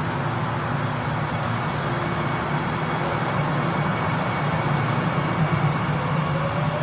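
Metro train running with a steady rumble and low hum; near the end a faint rising whine begins, as of the traction motors picking up speed.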